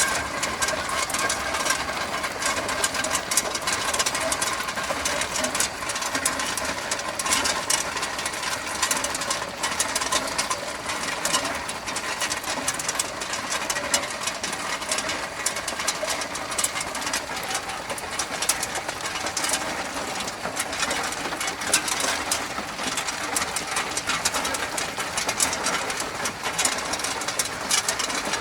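Tube ice machine harvesting: 35 mm ice tubes clattering out of the ice outlet over the running machine, a steady dense rattle of small knocks. The machine is in its defrost cycle, releasing the frozen tubes.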